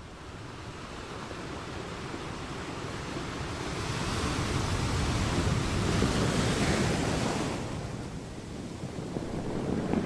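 Sea waves washing in. One wave swells to a loud rush in the middle, then recedes, and the next begins to build near the end.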